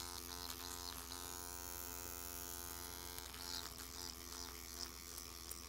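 Motorized microneedling pen buzzing faintly and steadily as its vibrating needle cartridge works the skin under the lower lip, its tone brightening for a couple of seconds partway through.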